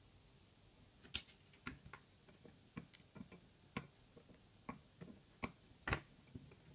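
Faint, sharp clicks and taps at an irregular pace, about a dozen over several seconds, from soldering tools and the small circuit board being handled in a metal helping-hands clamp.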